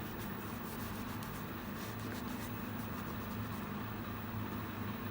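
A cloth rubbing and wiping over a Glock 43's polymer grip frame to clear the oil off before grip tape goes on: a run of short scratchy strokes, most of them in the first half. A steady low hum runs underneath.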